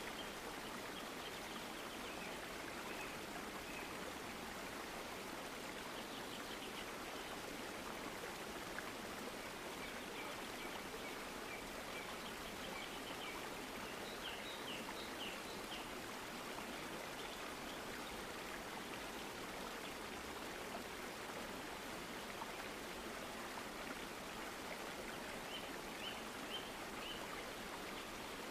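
Steady rushing noise, with a few faint short high chirps about halfway through and again near the end.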